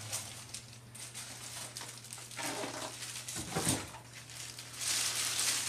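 Clear plastic bag crinkling and rustling as a wrapped statue is handled and lifted out of styrofoam packing, loudest from about five seconds in, over a steady low hum. A brief louder sound comes midway.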